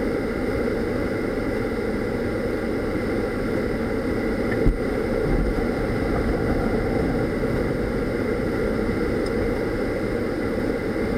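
Dodge minivan idling while parked, heard from inside the cabin as a steady low hum, with a light knock about four and a half seconds in.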